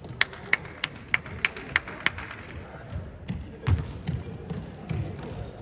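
A ball bouncing on a hard court floor, dribbled in an even rhythm of about three sharp bounces a second for the first two seconds, followed by a scatter of duller thuds.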